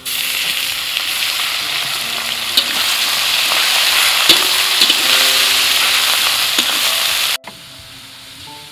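Sliced raw beef hitting hot oil and garlic in a steel wok and sizzling loudly as it is stirred with a metal spatula, with a few sharp clicks of the spatula on the pan. The sizzle starts abruptly as the meat goes in and drops away suddenly about seven seconds in.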